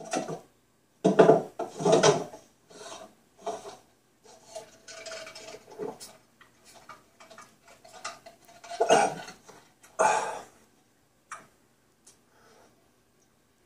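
Irregular clinks, knocks and rustling from items being handled and moved about. The loudest knocks come about a second or two in and again around nine and ten seconds in.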